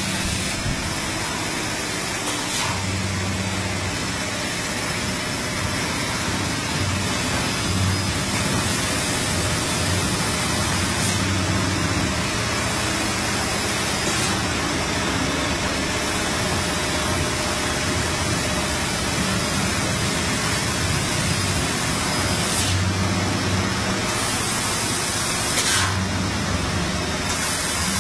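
CNC fiber laser tube-cutting machine running: a constant hiss with a low hum, and several times a higher hiss swells with the hum for a second or two.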